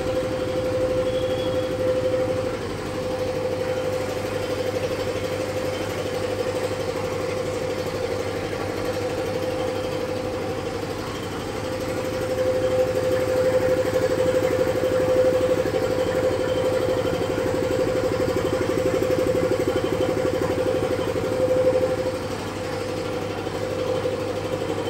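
An engine running steadily at idle, a constant hum with a held tone. It grows a little louder about halfway through and eases back near the end.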